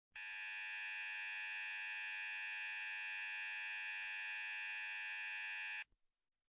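Emergency alert attention tone: a steady, buzzy electronic alarm tone held for about six seconds, then cut off suddenly, signalling that an emergency broadcast message is about to follow.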